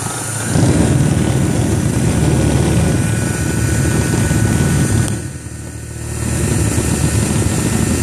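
Bodine 1/12 hp electric motor running on a variable-speed DC motor controller, with a steady hum. It speeds up about half a second in, drops off briefly about five seconds in, then comes back up to a steady run.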